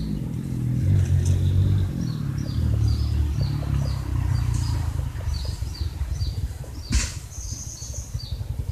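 A low engine hum that rises and falls throughout. Over it, a small bird chirps again and again in short falling notes. There is one sharp click about seven seconds in.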